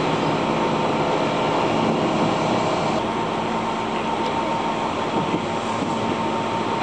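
Keihan 600 series tram running on street track, heard from inside the car: a steady rumble of wheels and motors with a faint steady high tone above it.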